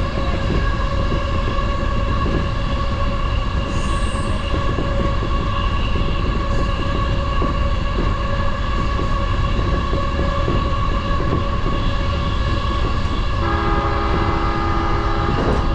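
JR Yokohama Line commuter train running between stations, heard from on board: a steady whine over the rumble and clicking of the wheels on the rails. Near the end a horn-like tone sounds for about two seconds.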